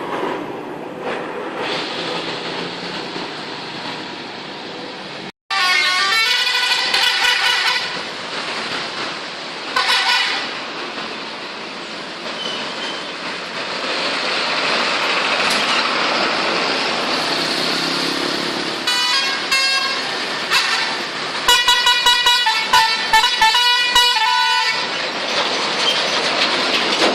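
Tour bus 'telolet' musical air horns sounding in several bursts of quickly changing tones over steady traffic and engine noise, the longest and busiest run near the end. The sound drops out briefly about five seconds in.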